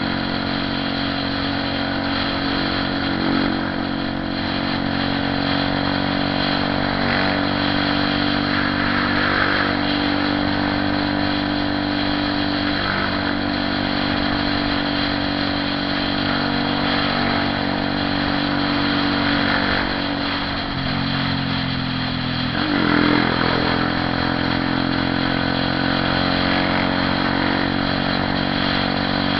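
Honda CB 300R motorcycle's single-cylinder engine running steadily, its pitch dropping about two-thirds of the way through and rising again a couple of seconds later.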